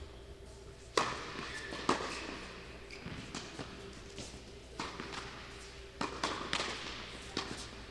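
Tennis ball knocks on the court and racket, with players' footsteps: two sharp hits about a second apart near the start, then a quick run of them from about six seconds in.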